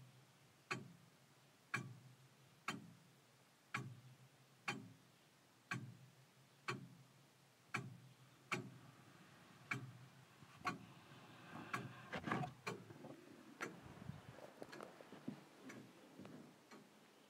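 Longcase clock ticking at about one beat a second, each tick a sharp click with a short low ring from the case. From about ten seconds in, irregular knocks and rustling sound over the ticking.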